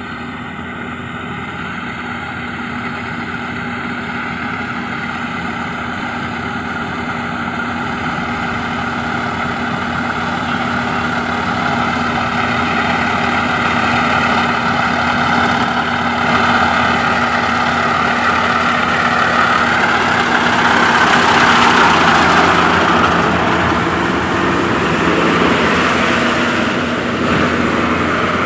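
Yanmar AG600A combine harvester's diesel engine running steadily, growing gradually louder, with a broader rushing noise swelling in the middle and fading near the end.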